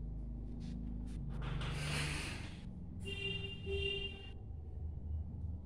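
A knife scraping along a piece of raw taro in two long strokes, the second with a thin squeal, over a low steady hum.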